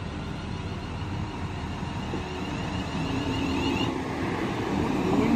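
A Class 350 Siemens Desiro electric multiple unit drawing into the platform and slowing, with wheel and running noise growing louder. A high electric whine stops about four seconds in.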